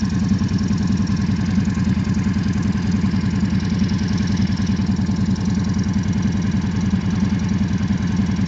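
Quad bike (ATV) engine idling close by, a steady even idle.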